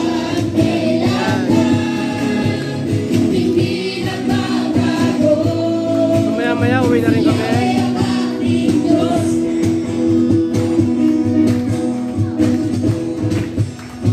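A gospel praise song with singing over a steady band backing, played loud through an outdoor PA sound system; the level dips briefly just before the end.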